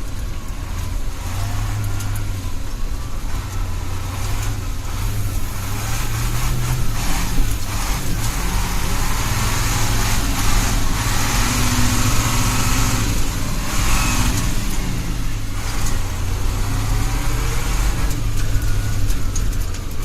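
Ural 4320 6x6 truck's diesel engine running with a steady low rumble, growing louder and harsher from about six seconds in until around fifteen seconds, then easing back.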